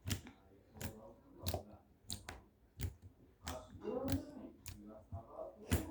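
Slime being squeezed and folded by hand to trap air, giving a series of sharp wet clicks, about nine of them, roughly one every two-thirds of a second.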